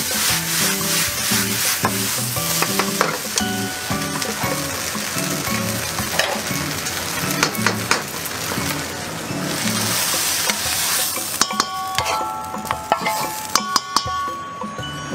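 Fried rice sizzling in a hot pan over a gas flame as it is tossed and stirred. In the last few seconds the sizzle thins out and sharp clinks and short ringing scrapes sound against the pan.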